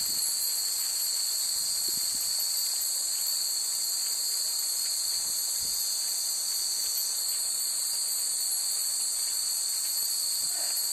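Steady high-pitched chorus of evening insects, unbroken throughout.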